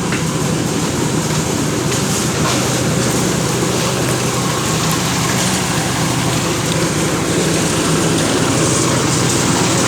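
Engine of a concrete mixer machine running steadily, with a low even drone and a rattling machine noise over it.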